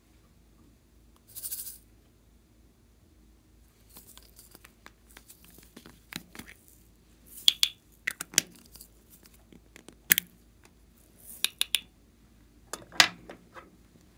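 Small hard-plastic novelty containers being handled and opened: a short rustle about a second and a half in, then a series of sharp plastic clicks and snaps as the lids are pulled and popped off.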